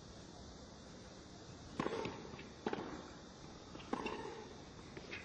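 Tennis ball struck with rackets in a rally: a serve and the shots that follow, four sharp knocks about a second apart with fainter ball bounces between.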